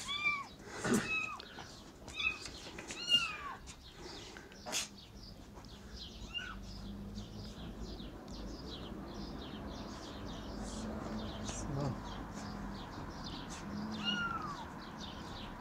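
Kitten mewing: a run of short, high-pitched mews in the first few seconds, another around six seconds and one more near the end.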